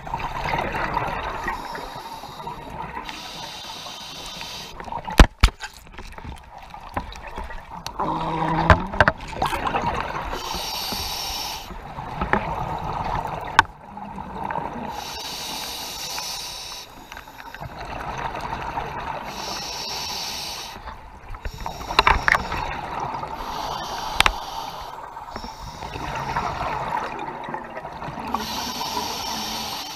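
Scuba diver breathing through a regulator underwater: a hissing inhale alternating with a bubbling exhale, repeating every five or six seconds. A few sharp knocks, the loudest about five seconds in.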